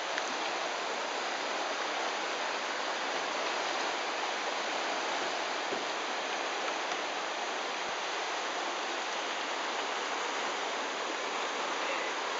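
Steady rush of whitewater from a standing river wave, the churning water of a low-flow rapid.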